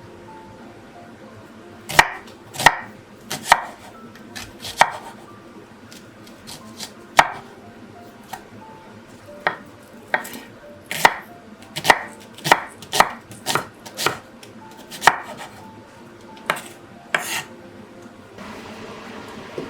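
Knife chopping on a cutting board in separate, irregularly spaced strokes, sometimes two in quick succession.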